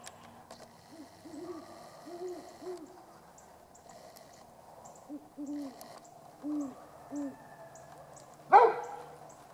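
Great horned owls hooting: two series of low hoots, the first starting about a second in and the second about five seconds in. Near the end comes one short, loud call, much louder than the hoots.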